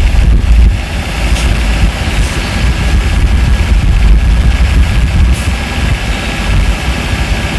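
Subwoofer driven by a Class D amplifier playing music, in an uneven, noisy low-end passage with no steady bass note; the level dips a little about a second in.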